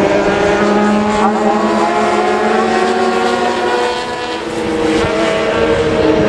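600cc supersport racing motorcycles running on the circuit. Several engines are heard at once as overlapping held tones that drift in pitch. The sound dips about four seconds in and swells again.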